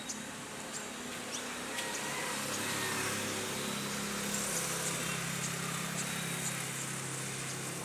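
A motor vehicle's engine running, growing louder about two seconds in and easing toward the end, over faint high chirps of small birds.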